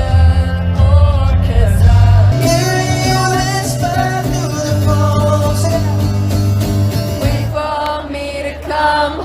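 A song with singing over guitar, with heavy sustained bass notes that drop away about seven and a half seconds in.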